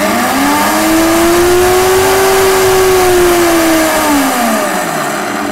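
Silver Crest commercial blender motor switched on with its locking on-switch. It spins up in a rising whine and runs loudly at speed. About four seconds in it is switched off and winds down in a falling whine.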